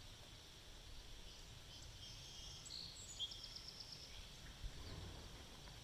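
Faint outdoor ambience: a steady high hiss with a few songbird chirps and a short rapid trill between about two and four seconds in.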